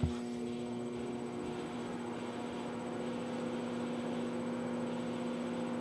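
Microwave oven running with a steady hum, just after being started, with a brief low thump as it kicks in.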